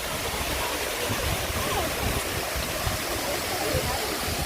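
Steady rush of flowing water, with faint chatter of people in the background.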